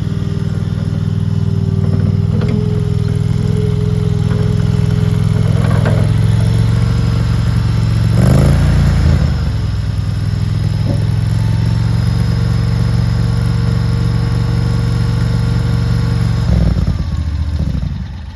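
Gas engine of a RODA RD380C mini skid steer loader running steadily. It gets louder and rougher for about a second around eight seconds in, then goes quieter near the end.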